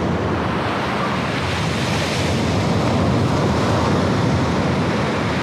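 Sea waves breaking on a sandy beach: a steady rush of surf that swells about two seconds in.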